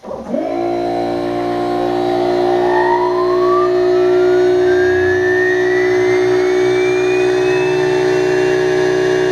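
Homemade CNC machine's spindle spinning up: a whine rising smoothly in pitch for about eight seconds and levelling off near the end, over a steady machine hum that starts suddenly.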